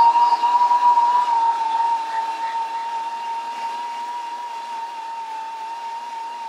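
3M pneumatic file belt sander with a Scotch-Brite surface-conditioning belt running on a steel plate, giving a steady high whine. The sanding hiss over it eases off over the first couple of seconds.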